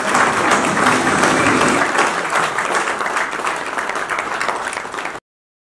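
A room full of people applauding steadily, cut off abruptly about five seconds in.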